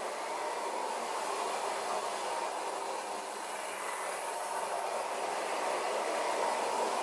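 Lionel Standard Gauge electric toy train running on three-rail metal track, a steady running noise that carries on after the train has passed out of view.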